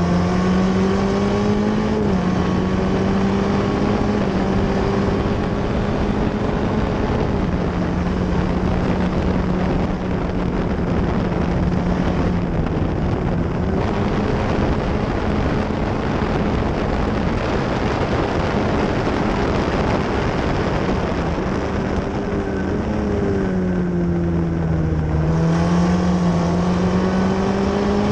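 F1600 open-wheel race car's four-cylinder engine running hard at high revs, heard onboard over wind rush in the open cockpit. The engine note holds nearly steady with a brief step down about two seconds in; near the end it sags over a few seconds, then climbs back up.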